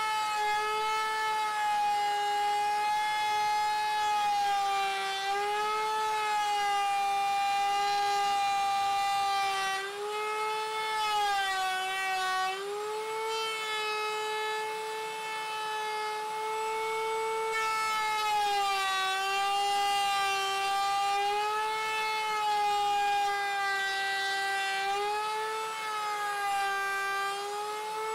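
Table-mounted router running at high speed, a steady high whine whose pitch sags and recovers every few seconds as the spinning bit takes load while it trims the edge of a round spalted maple tabletop to a pattern.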